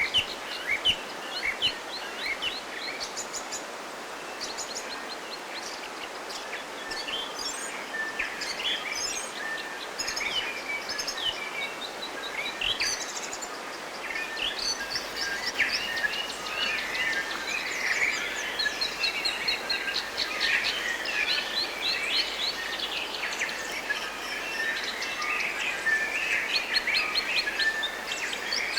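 Several forest birds singing and chirping throughout, with many short repeated chirps and quick trills, over a steady even hiss.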